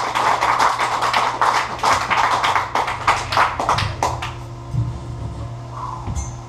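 Live death metal band: fast drum and cymbal hits over distorted guitar for about four seconds, then the playing stops, leaving amplifier hum and a few scattered low drum thumps.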